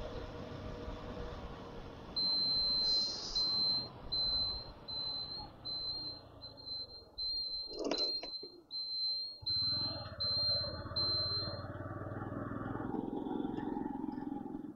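A high electronic beep sounds in a run of short, uneven pulses for about ten seconds over background noise. There is a sharp knock about halfway through, and a steady low hum comes in soon after.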